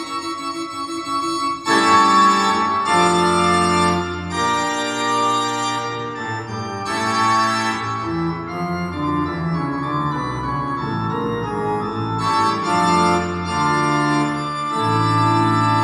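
Organ music played back through a KT150 push-pull tube amplifier: held chords that change every second or two.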